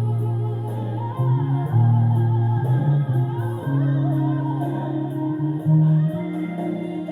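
Bass guitar playing held low notes along with a backing track in which a singer carries the melody.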